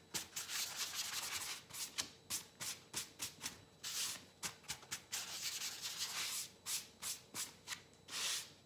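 A sponge rubbed back and forth over the wet paper of a photocopy (Xerox) transfer, scrubbing the softened paper backing away so that only the toner image stays on the ground. It is a quick run of rubbing strokes, about two or three a second, with a few longer sweeps among them.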